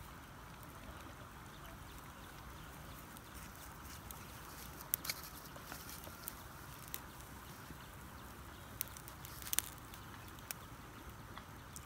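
Faint steady outdoor background noise with a few sharp crackles or clicks scattered through the second half.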